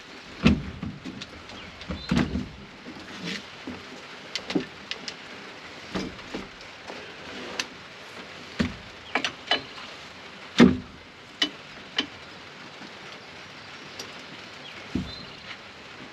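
Irregular metal clanks and knocks of hand tools on bulldozer parts as a stubborn bolt is worked loose, the loudest about ten and a half seconds in, over a steady hiss of rain.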